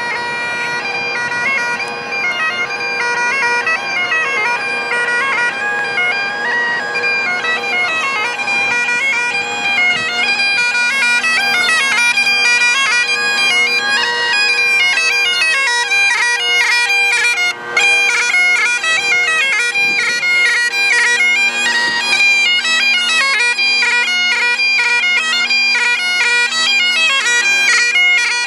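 Scottish Great Highland bagpipes playing a tune: the chanter melody steps between notes with quick grace notes over the steady drones.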